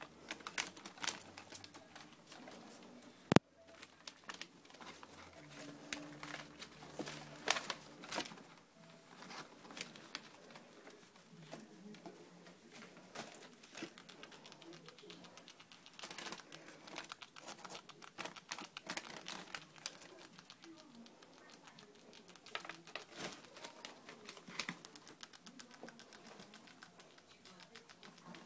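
Pet rats scrabbling and rustling through crinkly paper and food litter in a wire cage, with many small irregular clicks and scratches, and one sharp loud click about three seconds in.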